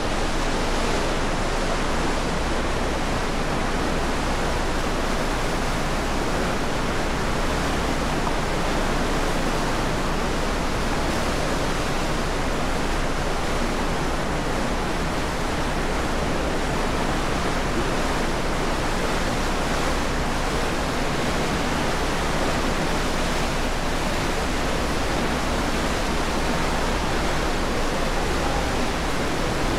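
Steady, unbroken rushing noise on the open deck of a departing cruise ship: wind across the microphone blended with the churning propeller wake below.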